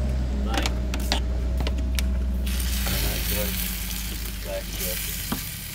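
Torch flame heating a steel truck axle: a steady low roar throughout, with a loud hissing sizzle for about two seconds midway.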